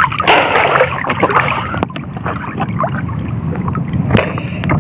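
A gill net being hauled by hand into a small wooden fishing boat: water splashing and dripping off the mesh, with scattered knocks against the hull, over a steady low rumble.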